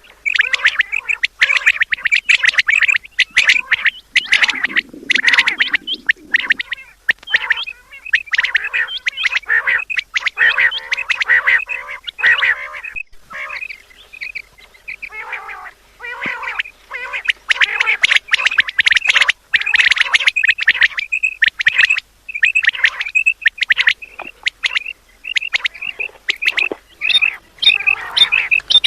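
Quails calling over and over, a dense run of short, sharp, high calls that overlap, thinning out briefly about halfway through. A brief low rumble sits under the calls about five seconds in.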